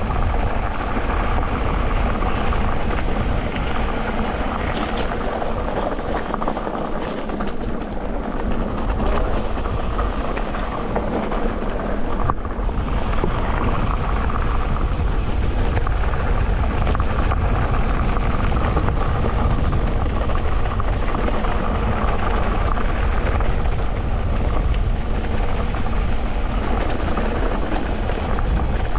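Electric mountain bike ridden along a dirt trail: steady rolling noise of the tyres on the ground with many small rattles and knocks from the bike.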